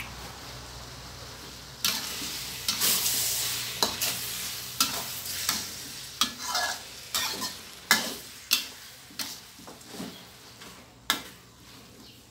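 Glass noodles stir-frying in a steel wok: a sizzle that starts about two seconds in, with a metal spatula scraping and knocking against the pan about once or twice a second. Both ease off toward the end.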